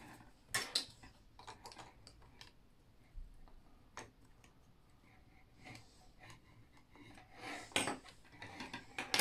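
Plastic Meccano Junior construction-toy parts clicking and knocking together and against a wooden tabletop as they are handled, with sharper clatters about half a second in and near the end.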